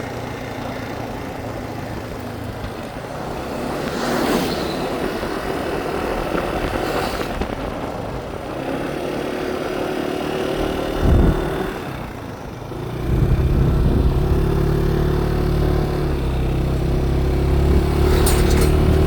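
Motorbike engine running with road noise, a couple of brief whooshes in the first half, then louder and steadier from about two-thirds of the way through.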